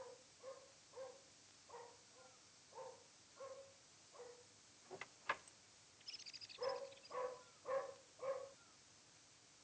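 A dog barking over and over, one short bark about every half second. About five seconds in the barking pauses for two sharp clicks and a brief high jingle, then comes back as four louder barks close together.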